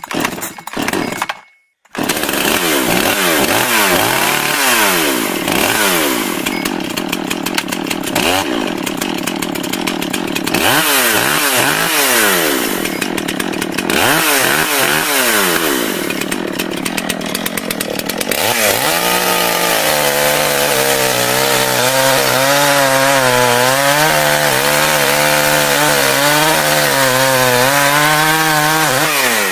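Chainsaw revving up and down over and over, then held at a steady high speed with a slightly wavering pitch for the second half.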